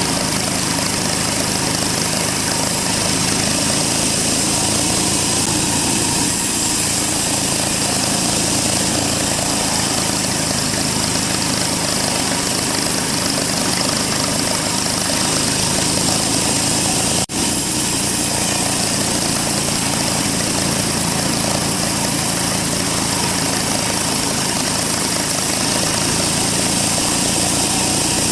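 Sawmill band saw running with a steady, loud mechanical noise, with one momentary dropout about seventeen seconds in.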